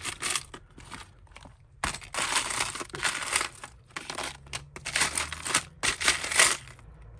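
Hands rummaging through a clear plastic tub of jumbled costume jewellery: bangles, beads and earrings clatter and rustle against each other and the tub in a run of quick bursts that starts about two seconds in.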